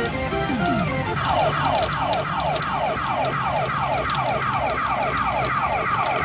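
Pachinko machine's electronic sound effect: a siren-like falling tone repeated about three times a second, starting about a second in after a short musical phrase. It is from P Super Umi Monogatari in Okinawa 5.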